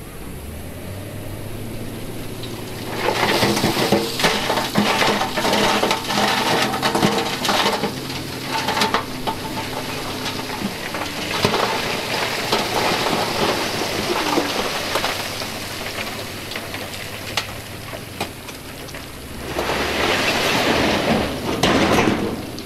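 SDLG wheel loader's diesel engine running while its bucket pushes loose rock across the gravel bank, with three spells of stones scraping, clattering and tumbling over the edge, the last ending in splashing into the water.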